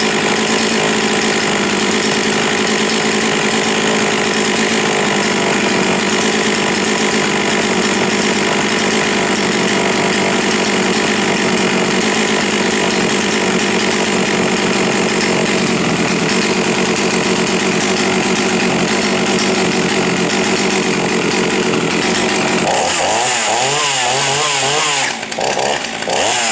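Jonsered 450 two-stroke chainsaw running steadily at high speed. About 22 seconds in, the engine speed starts swinging quickly up and down as the throttle is worked, then falls away near the end.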